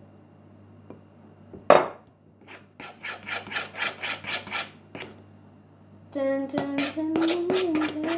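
A utensil stirring and scraping sticky borax slime in a bowl, one sharp knock near the start, then a quick rhythmic scrape of about five strokes a second. Near the end a held, slightly wavering hum runs over the scraping.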